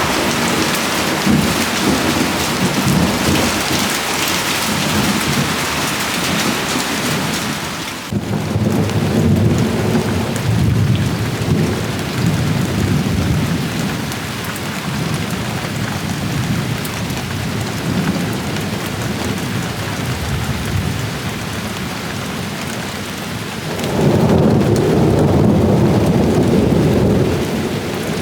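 Heavy rain pouring steadily, with rolling thunder rumbling over it. Thunder swells about eight seconds in and again, loudest, near the end.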